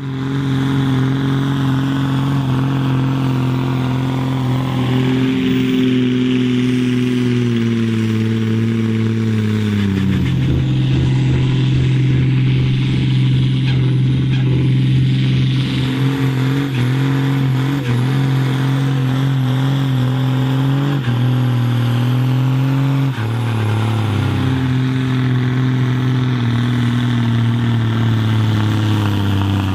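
John Deere farm tractors' diesel engines running hard at full load while pulling a weight sled, a loud steady drone with black-smoke-heavy lugging. The engine pitch sags slowly over several seconds, then shifts up and down in steps later on.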